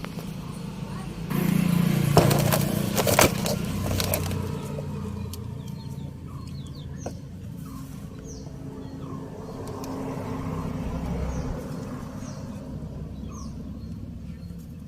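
Hands working on horn relay wiring: rustling with two sharp clicks about two and three seconds in, then quieter handling, over a steady low hum. Small birds chirp briefly now and then.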